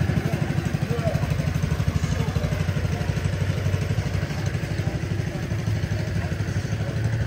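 Ford Mustang GT's 5.0-litre V8 idling, a steady, rapid low exhaust pulse.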